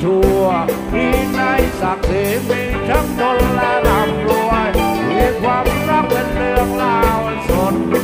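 Live rock band playing a Thai phleng phuea chiwit song: a steady drum beat, bass and a sliding melodic lead line, with singing.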